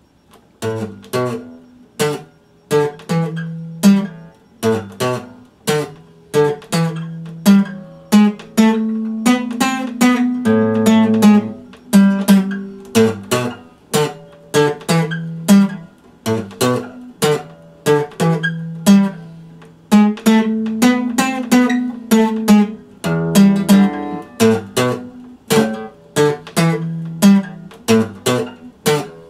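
Epiphone acoustic guitar played solo, chords strummed and picked in a steady rhythm, each stroke ringing out. The playing starts about half a second in.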